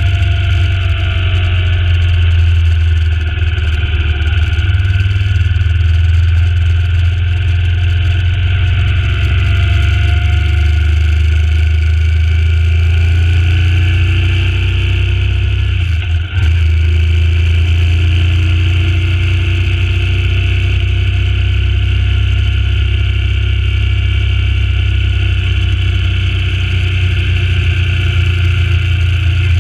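Suzuki Intruder C800's V-twin engine running steadily under way on the road, its pitch sliding up and down as the speed changes. The level drops briefly about halfway through.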